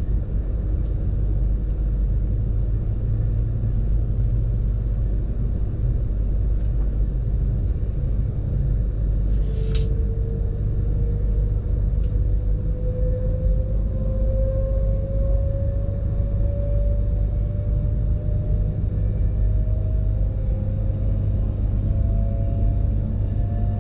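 Cabin of an Avanti West Coast Class 390 Pendolino electric train pulling away from a station: a steady low rumble of the running gear, with the traction motors' whine coming in about nine seconds in and slowly rising in pitch as the train gathers speed. A brief squeak sounds around the same moment.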